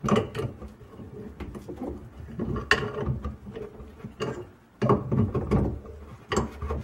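Wrench working the faucet supply-line nuts on the under-sink shut-off valves: irregular metal clicks, clinks and scrapes in loose clusters as the nuts are tightened.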